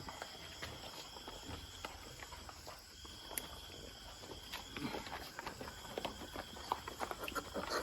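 Faint, steady insect trill that breaks off about a second in and resumes about three seconds in, with scattered clicks and rustles and short animal noises that grow busier in the second half.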